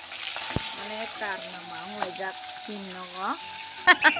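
Fish sizzling as it fries in hot oil in a wok: a steady hiss with a click about half a second in and a voice in the background. Just before the end a child's voice and giggling break in loudly.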